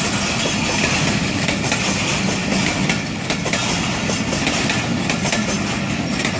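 Pakistan Railways passenger coaches rolling past close by. The wheels clatter over the rail joints with irregular sharp clicks over a steady rumble.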